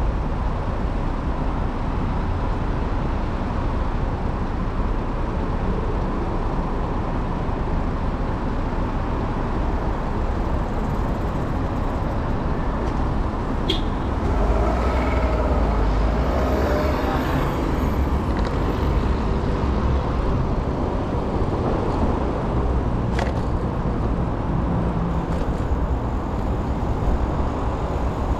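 Steady city street traffic: cars and other motor vehicles running past, with a louder passing vehicle about halfway through and a couple of sharp clicks.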